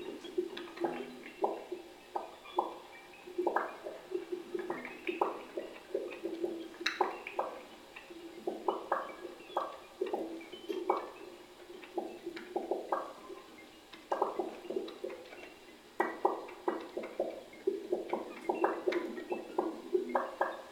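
Electric guitars playing scattered, irregular short plucked and tapped notes at many different pitches, like dripping water, over a held low note.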